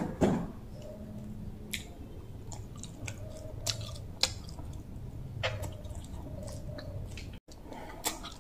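A person chewing a mouthful of bamboo-shoot curry and sticky rice, with short wet mouth clicks and smacks every second or so.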